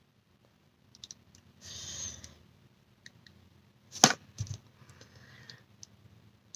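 Small wet mouth clicks and lip smacks as liquid lipstick is worked over the lips with its doe-foot wand, with one sharp smack about four seconds in and a short breathy hiss a little before two seconds.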